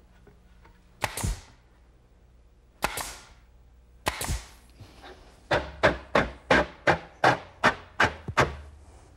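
A nail gun fires three separate shots about a second and a half apart, nailing the back of a plywood drawer at its corners. A quick regular run of about nine sharp strikes follows, about three a second.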